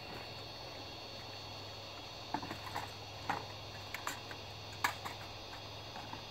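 A few scattered light clicks and knocks over a steady low hum.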